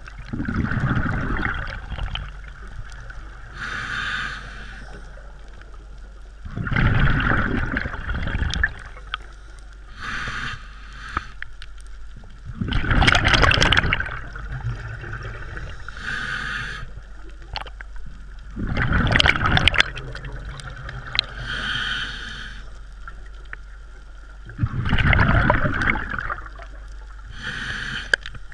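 A scuba diver breathing through a regulator, recorded underwater: a short hissing inhale roughly every six seconds, each followed by a louder, longer rush of exhaled bubbles. Five exhales in all.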